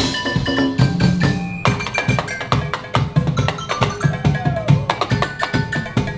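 Music with a busy percussion beat: wood-block and drum hits with pitched mallet-like tones.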